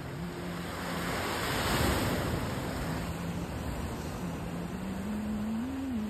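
Ocean surf washing over rocks below a cliff, swelling to its loudest about two seconds in. A faint low motor hum runs underneath and rises a little in pitch near the end.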